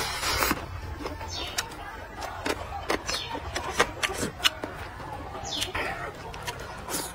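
Close-miked mouth sounds of a person eating: wet chewing and slurping, with many sharp lip smacks and clicks at an irregular pace.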